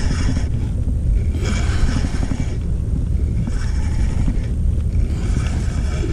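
Spinning reel being wound in short bursts about every two seconds as a hooked fish is reeled up from the bottom, over a steady low rumble on the microphone.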